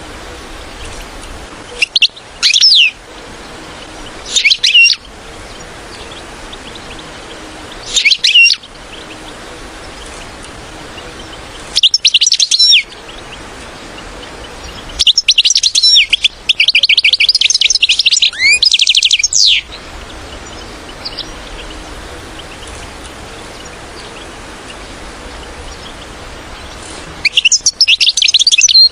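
European goldfinch calls and twittering song: short bursts of quick high chirps every two to four seconds, and one longer run of rapid twittering in the middle, over a steady low hiss.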